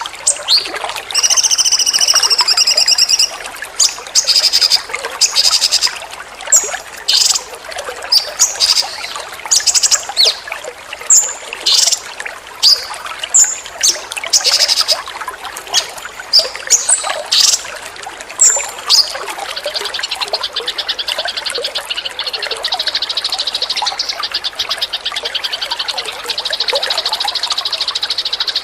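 Songbird song over trickling water: a high trilling phrase in the first few seconds, then a long run of short, sharp, high calls, then from about twenty seconds in a steady, fast buzzing trill.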